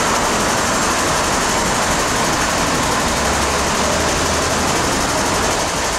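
Steady hum and rushing noise of an MTR M-Train electric train and the station, as the train approaches along the track.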